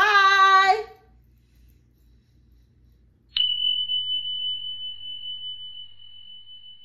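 A woman's voice briefly at the start, then a single high, bell-like ding about three seconds in that rings on and slowly fades.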